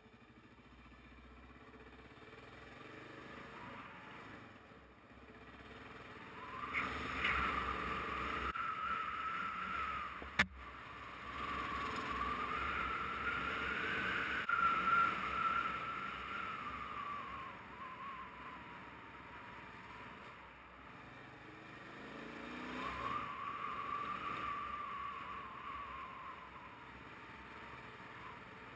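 Motorcycle engine running on a dirt road, its note swelling and falling three times with the throttle over a low rumble. A single sharp click about ten seconds in.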